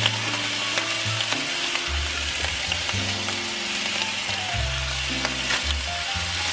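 Corned beef slices sizzling in a nonstick frying pan on an electric stove: a steady crackling hiss as the meat heats up.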